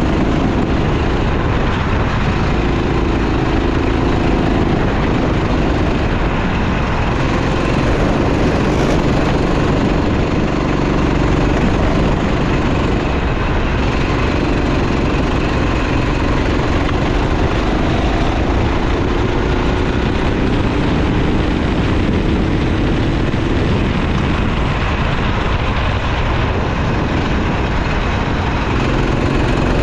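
Racing kart engine running at speed, its note rising and falling with the throttle, over a steady rushing noise.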